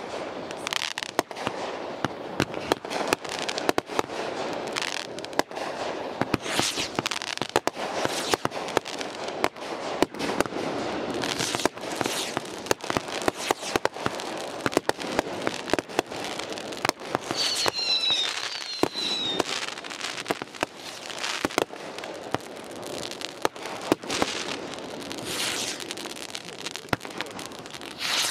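Aerial firework shells bursting in quick succession: a dense run of sharp bangs over continuous crackling. A brief high gliding whistle comes about eighteen seconds in.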